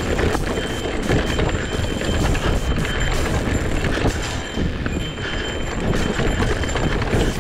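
Electric mountain bike rolling fast over a rocky dirt trail: a dense rumble of tyres on dirt with frequent rattles and clatter as the bike hits rocks. A faint steady high whine runs beneath.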